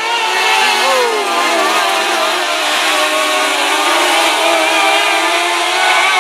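A field of mini late model dirt-track race cars running at speed, several engines overlapping into a steady drone. About a second in, one engine's pitch falls.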